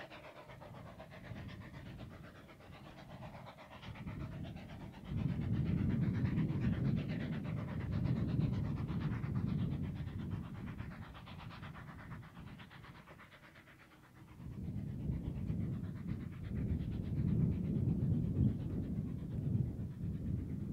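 Narrow-gauge steam locomotive Axe working a goods train away, its exhaust beating in quick, even chuffs. A low rumble swells about five seconds in, eases, and swells again about fifteen seconds in.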